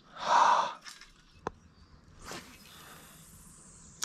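A short breathy rush at the start, then a single click. Then a fishing cast: a rod swish, fishing line hissing off the reel with a slowly falling pitch, and a small splash of the lure landing near the end.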